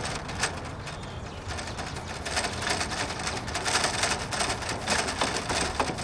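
Screwdriver working in the plastic inside housing of a keyless RV door lock, a run of small clicks and plastic taps that comes faster and denser about two seconds in.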